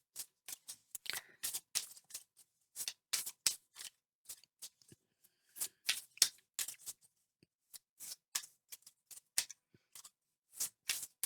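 Tarot cards being shuffled and handled: a string of crisp, irregular card snaps and slides, a few a second with short pauses.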